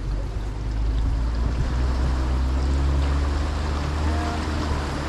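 Pickup truck's engine running steadily as it drives, a constant low hum under a continuous rush of tyre and trail noise.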